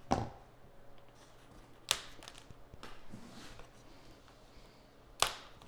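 A few short sharp clicks or knocks, about two to three seconds apart, with a soft rustle between them, over quiet room tone: handling noise.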